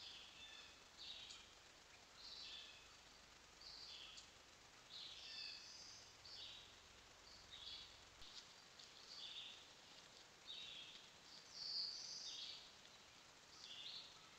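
Faint songbirds singing: short high phrases repeating about once a second over a quiet background hiss.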